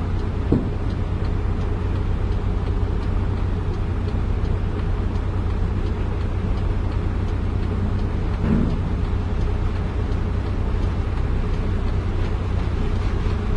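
Heavy diesel engine running steadily with a low drone, with a faint knock about half a second in and another around eight and a half seconds.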